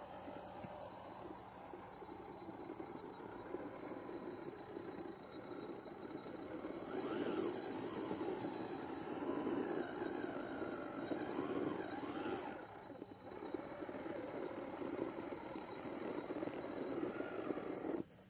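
Small electric motor and gearbox of a 1:12-scale RC 4x4 crawler whining under load over rocks, with a constant high-pitched tone. The whine rises and falls in pitch as the throttle is worked, most clearly about seven and twelve seconds in, then cuts off suddenly.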